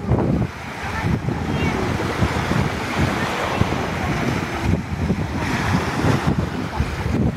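Wind buffeting the microphone over the steady wash of sea surf.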